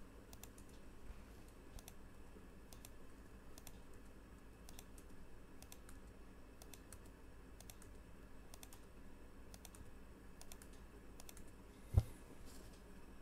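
Faint computer keyboard typing: irregular soft key clicks, with a single louder thump about twelve seconds in.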